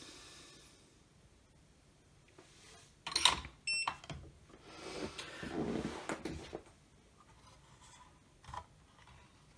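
Handling noise from the opened battery charger's circuit boards and plastic housing being moved about by hand: a few sharp knocks about three seconds in, then a couple of seconds of rubbing, and a single click near the end.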